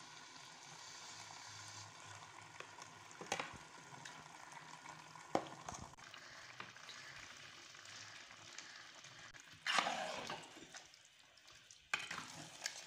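Potato and onion masala frying in mustard oil in a clay pot, sizzling steadily under fresh tomato puree. A few sharp knocks of a spoon sound along the way, and near the end a louder burst of scraping as the spoon stirs the tomatoes in.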